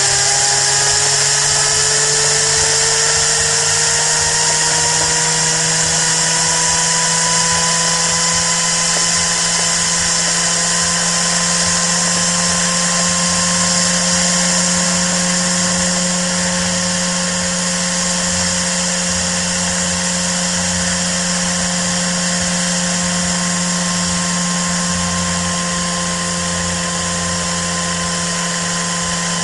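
Steam-driven Tesla bladeless disc turbine running: its whine rises in pitch over the first several seconds as it gains speed, then holds steady. Underneath is the loud hiss of steam escaping past the turbine and a steady low hum.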